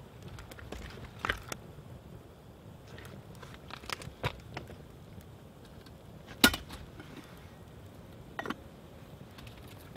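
Campfire coals crackling: a few scattered sharp pops and snaps over a faint steady background, the loudest about six and a half seconds in.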